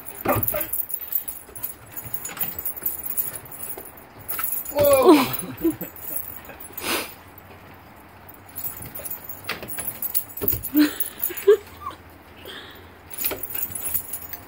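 A small dog playing on wooden deck boards: its claws click and scrabble and its metal collar tags jingle. About five seconds in there is one short whining cry that slides down in pitch, and a couple of small yips come later.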